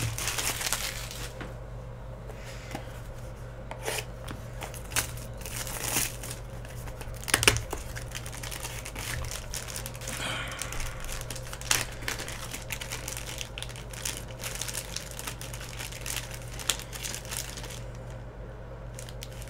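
Black plastic wrapper of a trading card pack crinkling and tearing as it is opened and a cased card is slid out, with scattered sharp knocks, the loudest a little before halfway.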